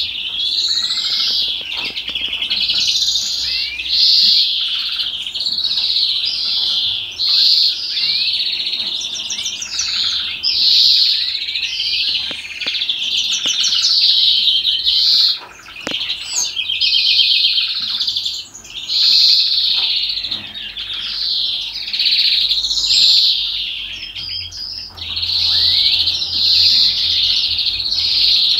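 Domestic canary song: a long, unbroken, high warbling stream of rapid trills, rolls and gliding notes, the free-flowing style Turkish breeders call 'salma', with only brief pauses about halfway and two-thirds of the way through.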